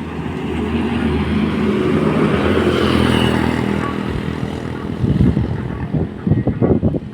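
A motor vehicle passes by, its engine growing louder to a peak about three seconds in and then fading away. In the last couple of seconds, irregular gusts of wind rumble on the microphone.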